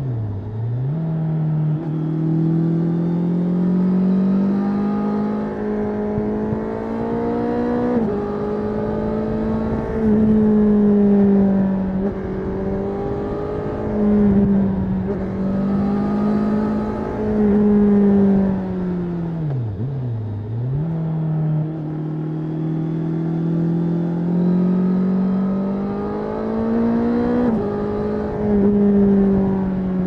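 Honda CBR650R's inline-four engine under way, heard from the rider's seat: it pulls up in revs and drops pitch suddenly several times as it shifts up, with two roll-offs where the revs fall away, one at the start and one about two-thirds through, before it picks up again.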